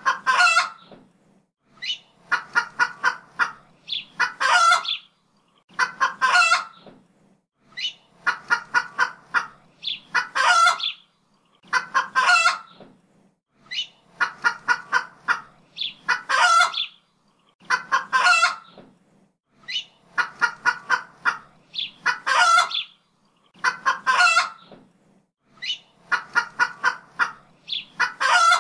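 Chickens clucking: quick runs of short clucks alternate with longer single calls, and the same sequence repeats about every six seconds, like a looped sound effect.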